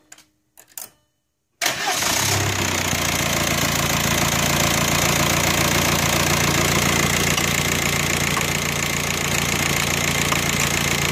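Warm VW 2.0 TDI pumpe-düse four-cylinder diesel starting abruptly about a second and a half in, then settling into a steady idle.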